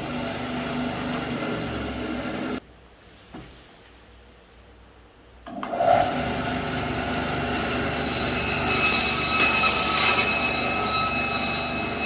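Electric meat-and-bone band saw (JG-210 bone saw) running with a steady whine. The sound breaks off for about three seconds near the middle and then runs again, louder in the last few seconds.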